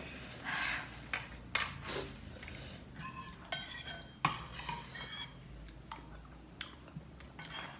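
Cutlery clinking and scraping against plates and bowls while food is eaten: scattered sharp taps and scrapes, with a few ringing metallic clinks around the middle.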